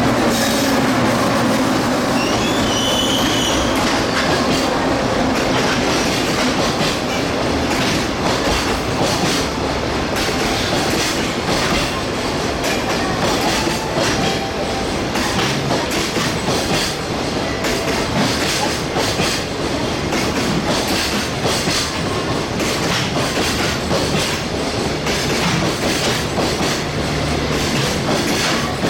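A train rolling along the track with a steady rumble and wheels clacking over rail joints, with a brief high wheel squeal about three seconds in.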